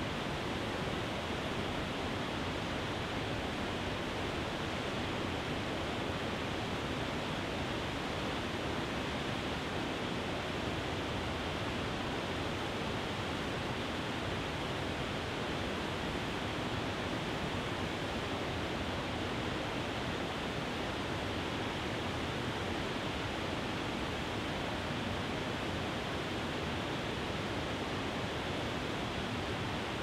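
Small waterfall: water pouring over a rock ledge into a river pool, a steady, unchanging rush.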